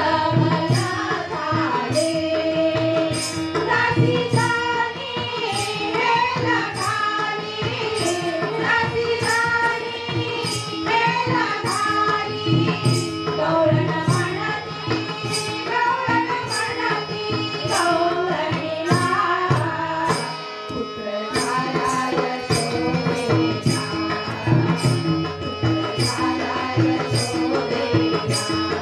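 Women's voices singing a Marathi gavlan devotional folk song, accompanied by a hand drum such as a tabla and sharp metallic strikes keeping a steady beat of a little over one a second. The music briefly thins about two-thirds of the way through.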